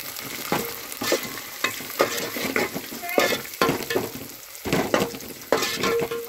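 Sliced onions and whole green chillies sizzling in hot oil in a metal pot, being fried toward golden brown. A metal spoon stirs them, scraping against the pot about every half second.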